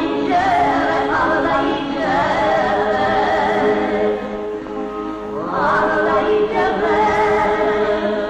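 Music with singing voices holding long, wavering notes, in two phrases with a brief drop in level about four seconds in.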